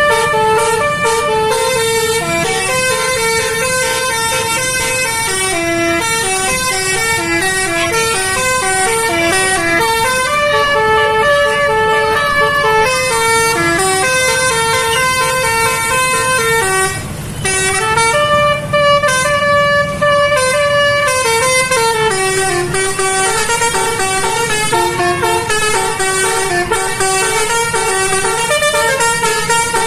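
Bus "telolet" multi-tone air horn playing a melody, one held note after another, with a low rumble underneath. The tune breaks off briefly about halfway and then carries on.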